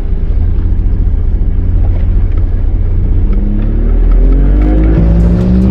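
Bass boat's outboard motor running under way. From about three seconds in its pitch climbs steadily as the throttle opens and the boat tries to get up on plane after it had been failing to plane.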